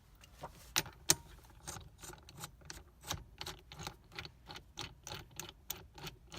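Ratchet wrench clicking in a quick, fairly even run of about four clicks a second, some louder than others, as the loosened 16 mm steering wheel bolt is wound out.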